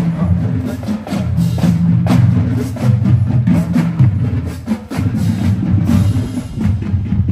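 Marching band playing: repeated drum hits over a low bass line of held notes that shift in pitch.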